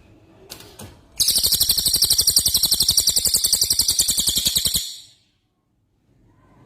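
Songbird singing a 'rol tembak' song: a rapid, even, rattling trill of about a dozen notes a second that lasts about three and a half seconds and then cuts off sharply.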